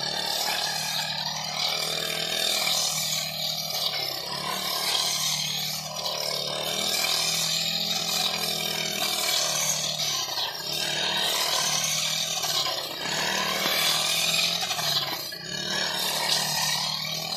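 Backpack brush cutter's small petrol engine running under load as its blade cuts green fodder. The sound swells and eases about every two seconds as the blade sweeps.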